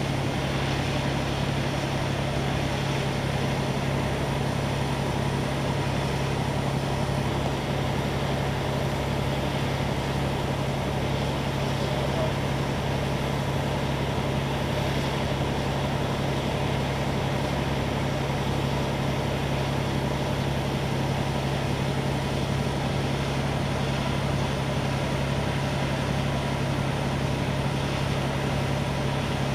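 Fire-pump engines running steadily while water streams are sprayed, a constant droning hum with a hiss of spray over it.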